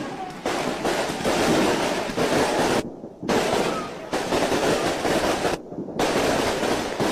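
Fireworks and firecrackers going off in a dense, loud crackle with repeated sudden bangs. The sound drops out briefly twice, about three seconds in and again near six seconds.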